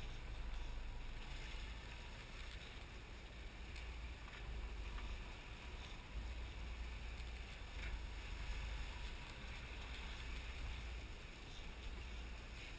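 Sport-fishing boat under way: a steady rush of engine and churning wake, with a low, uneven rumble of wind buffeting the microphone.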